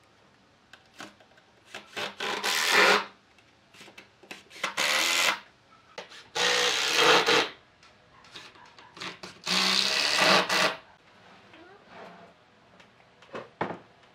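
Cordless drill driving screws into a wooden table base: four bursts of about a second each, with short pauses between. A couple of light wooden knocks near the end.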